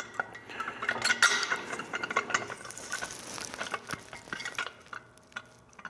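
Small metal clicks, clinks and scrapes of a 3/8-inch bolt and flat washer being handled and pushed through the bolt holes of a dethatcher's extension tube and main frame, thinning out near the end.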